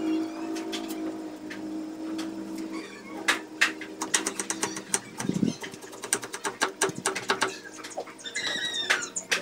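Kitchen knife tapping on a wooden cutting board while slicing shallots and chillies: quick, irregular taps that start about three seconds in. Before the taps, a steady low hum fades out, and a few short high chirps come near the end.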